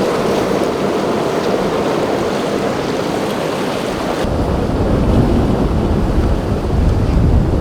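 Rough surf and open water with wind on the microphone. About four seconds in the sound changes abruptly to a heavy low wind rumble.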